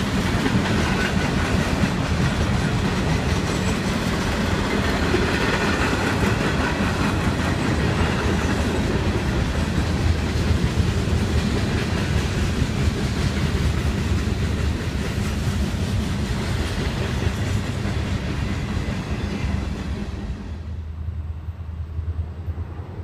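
Freight train of hopper cars and boxcars rolling past, with a steady clatter and rumble of wheels on the rails. About 20 seconds in it drops suddenly to a quieter low, steady rumble.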